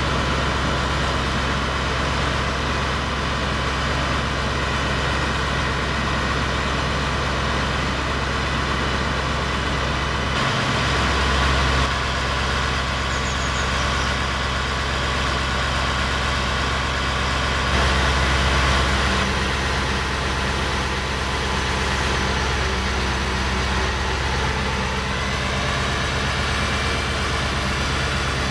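KamAZ 43118 truck's diesel engine running steadily at idle, with two brief rises in level, about ten and eighteen seconds in.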